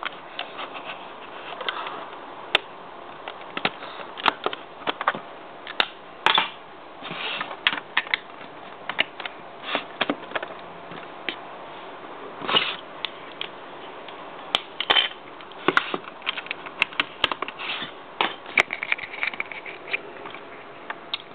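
Plastic Lego bricks being handled and shifted, giving irregular clicks, taps and knocks, with several louder knocks spread through.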